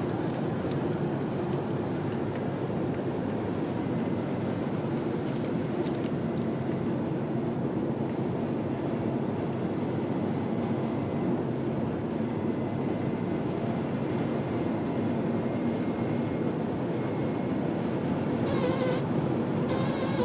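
Steady running noise from inside a Subaru Legacy, a dense even rumble of engine and road noise. A faint thin whine comes in for several seconds past the middle, and a short buzzing noise sounds near the end.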